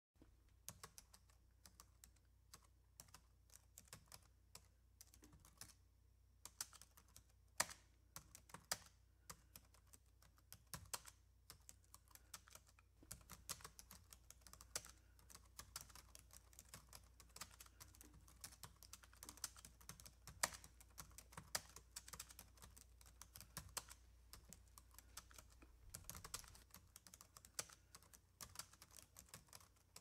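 Typing on a computer keyboard: a continuous, irregular run of keystroke clicks, some struck harder than others.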